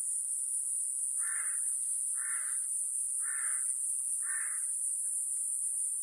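Iwasaki grass cicada (Mogannia minuta) singing a steady, very high-pitched buzz. A bird calls four times over it, harsh calls about a second apart.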